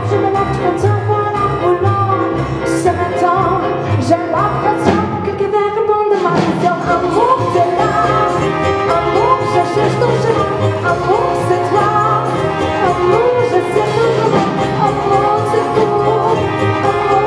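Live jazz band playing with a woman singing lead: her voice over grand piano, double bass, drums, alto saxophone and trumpet.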